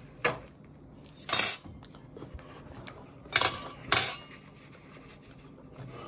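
Tableware clinking and clattering: four sharp knocks of cutlery against dishes. The second rings on briefly, and the last two come close together.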